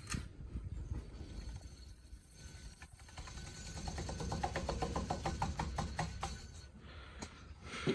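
Hampton Bay Huntington III ceiling fan spinning down after being switched off, with a faint, rapid, rhythmic ticking that swells about midway and fades away near the end.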